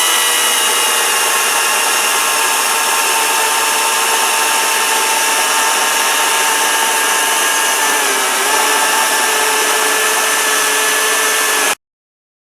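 Greenworks battery-powered electric chainsaw running at full speed and cutting through an oak limb: a steady high whine with chain noise. Its pitch dips a little about eight seconds in as the cut loads it, and it cuts off suddenly near the end.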